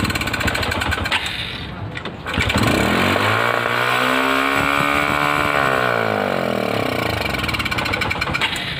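Honda Karisma 125 cc single-cylinder four-stroke engine running on test with a newly fitted carburettor repair kit. About two seconds in it dips briefly, then its revs climb, hold and fall back over several seconds.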